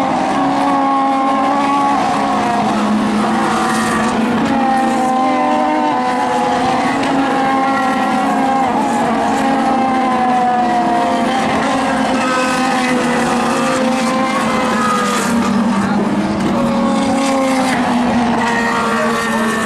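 Several IndyCars' 2.2-litre twin-turbo V6 engines running hard, their overlapping notes sliding down and back up as the cars slow, shift and accelerate past through the bends.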